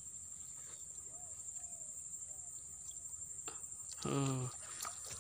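Crickets or similar insects trilling steadily at a high pitch, with a few faint chirps. About four seconds in a man's short voiced exclamation is the loudest sound, among faint splashes as a hooked snakehead thrashes at the water's surface.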